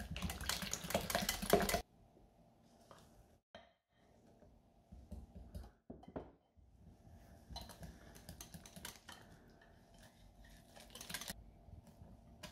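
A small metal wire whisk beating crêpe batter in a glass jug, its wires clicking rapidly against the glass. There is a short fast rattle at the start, softer stirring after it, and a longer spell of fast clicking in the second half.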